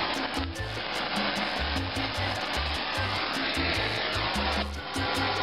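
Handheld kitchen torch flame roaring steadily as it scorches the skin of poblano peppers. The roar dips briefly near the end.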